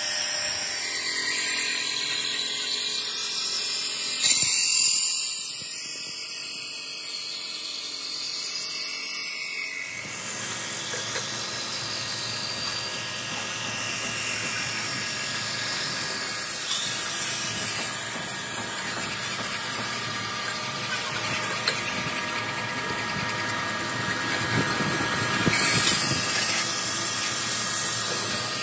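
A centerless grinding machine grinding a steel motorcycle front-fork tube under coolant spray. The wheel on the metal gives a steady high-pitched grinding hiss with a few steady tones. There is a brief loud clank about four seconds in, and the sound shifts in character about ten seconds in.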